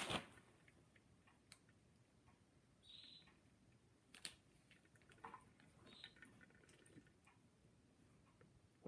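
Near silence with faint scattered clicks and small squelches from a plastic jelly fruit cup being squeezed and sucked at the mouth, including a short high squeak about three seconds in.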